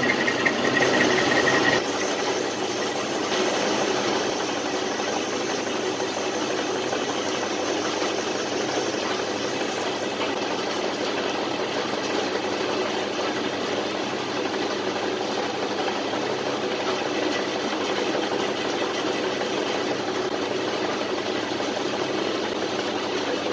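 Homemade lathe running while a large twist drill bores into the end of a spinning metal bar: a steady machining noise of motor, spindle and cutting, with a high whine for the first two seconds.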